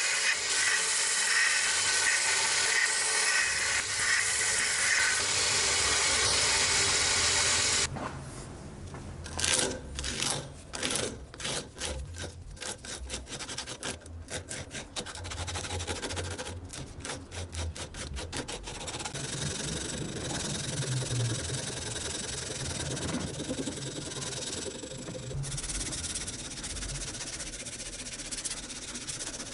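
A small bench belt sander runs steadily, grinding the edge of a wooden knife handle, and stops abruptly about eight seconds in. Then sandpaper is rubbed by hand over the wooden handle clamped in a vise: runs of quick back-and-forth strokes, softening into steadier rubbing over the last ten seconds.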